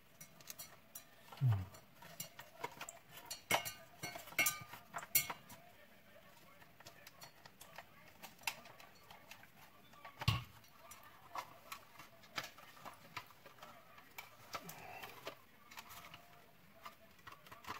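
Scattered light clicks, taps and rustles of small plastic vacuum-cleaner parts and wires being handled during assembly, with a duller knock about ten seconds in.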